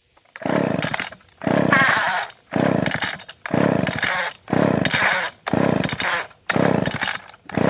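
McCulloch chainsaw being pull-started over and over: eight quick pulls about a second apart, each a loud burst of the recoil starter and the engine turning over, without the engine catching. The saw won't start despite choke on and fuel in the tank, and the owner means to adjust its carburetor.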